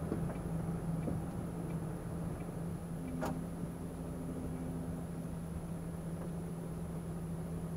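Lorry's diesel engine running at low speed, heard from inside the cab as a steady hum while the truck turns into a parking space, with a single sharp click about three seconds in.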